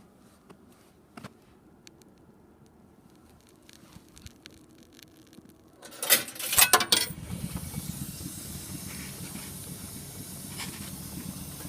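Orchestrion starting up: a few faint clicks, then a burst of loud clacks about halfway through as the mechanism engages. A steady whirring hiss of its motor and air pump follows.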